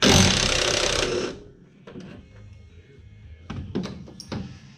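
A power tool runs in one loud burst of about a second, loosening a nut on the race car's frame, followed by scattered clicks and knocks of tools and hardware.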